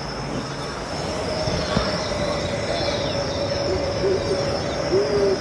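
Steady background noise of a large exhibition hall: an even wash of sound with a steady hum and a high faint tone running through it.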